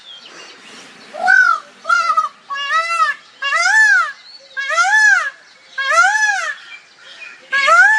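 A peacock calling: a series of seven loud wailing calls, about one a second, each rising and then falling in pitch. The calls begin about a second in and grow longer as the series goes on.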